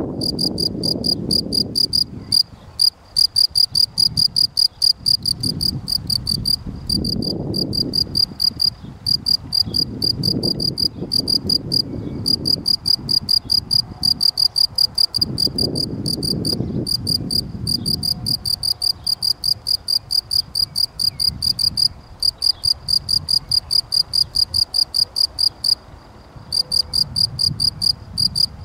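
Male European field cricket (Gryllus campestris) singing: a steady run of clear, high-pitched chirps, about three to four a second, broken by a few brief pauses.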